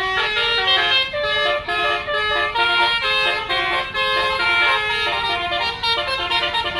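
Basuri telolet bus horn playing a melody: a continuous run of shifting horn notes, several changes a second.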